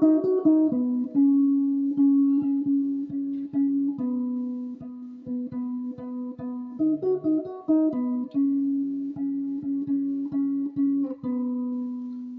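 Background music: an instrumental song intro of plucked guitar notes over sustained chords, before the vocals come in.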